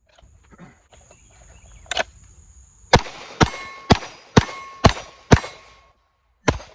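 Pistol shots on steel targets: one shot about two seconds in, a quick string of six about half a second apart, then one more near the end, with the steel plates ringing after the hits. A faint high-pitched steady tone runs under the first few seconds.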